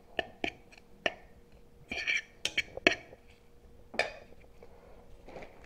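Metal fork clicking and scraping against a bowl while stirring tuna salad, in a string of irregular taps that come thickest about two to three seconds in.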